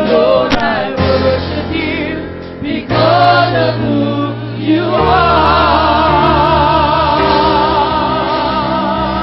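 Gospel praise team singing in harmony over instrumental backing, with long held notes carried on a wide vibrato.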